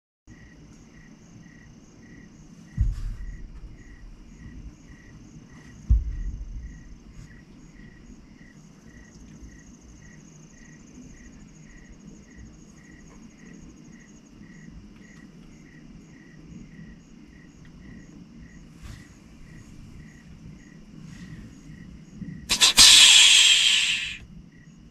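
Crickets chirping steadily in a rural field, about two chirps a second, over a low background rumble. Two thumps come about three and six seconds in, and near the end there is a loud rushing hiss lasting under two seconds.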